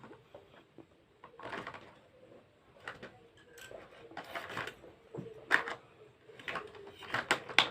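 Clicks, taps and scratchy rustling from hands handling the plastic toy remote-control car, its battery compartment and loose batteries, with a few sharper plastic clicks.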